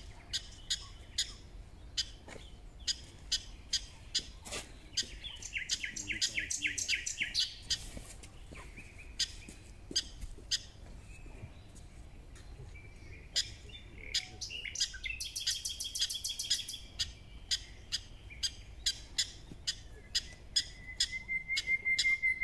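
A prairie dog calling a long run of short, high chirps, about two to three a second, the repeated bark of a prairie dog alarm call. Twice the chirping breaks into a rapid trill lasting a couple of seconds.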